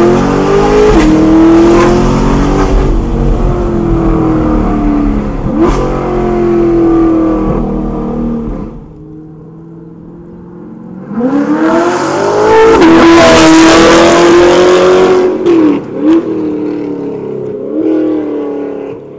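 C8 Corvette V8 through long-tube headers, high-flow cats and a catback exhaust, at wide open throttle: revs climb with quick upshifts, heard from inside the car with the windows down. After a short quieter gap about nine seconds in, the car approaches and passes at full throttle from the roadside, with more upshifts near the end.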